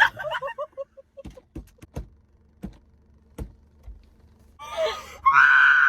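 A young woman imitating a dinosaur: a loud, high, held shriek of under a second near the end, in a pterodactyl-like screech. Before it, a quick run of laughing breaths dies away and a few sharp clicks sound.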